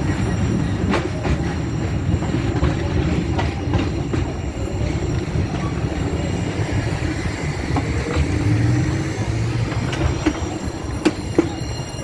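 Passenger train running along the track, heard from a carriage window: a steady rumble of wheels on rail with scattered clicks from the rail joints.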